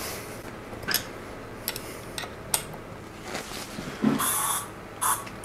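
A few light clicks and knocks of handling, then a short hiss of an aerosol can of furniture polish sprayed onto the bicycle frame about four seconds in, with a briefer spurt near the end.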